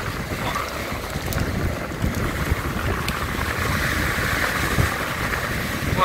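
Storm waves breaking and washing over a pebble beach, the hiss of the surf swelling to a peak about four seconds in, with wind buffeting the microphone.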